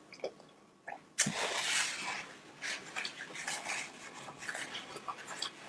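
Close-miked eating of saucy shelled seafood. A loud wet bite or slurp comes about a second in, followed by wet chewing and lip-smacking clicks.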